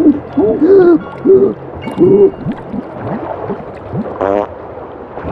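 Wordless, muffled cartoon-character vocal sounds: a string of short rising-and-falling moans and hums, with gurgling. A brief warbling sound effect comes about four seconds in.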